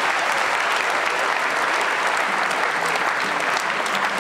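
Arena crowd applauding steadily at the end of a kickboxing round.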